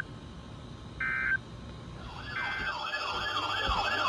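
Emergency Alert System tones off NOAA Weather Radio: short bursts of SAME digital data tones about a second apart, then from about two seconds in a warbling alarm siren that rises and falls about three times a second and grows louder, signalling an incoming alert.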